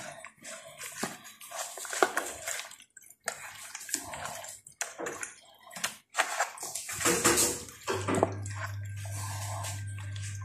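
Hands squishing and squelching pieces of raw mutton in a wet marinade in a roasting tray, in irregular short bursts. About eight seconds in, a low steady hum starts underneath.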